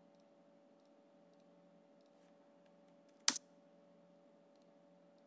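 Faint, scattered clicks of a computer mouse and keyboard, with one sharp, louder click a little over three seconds in, over a faint steady hum.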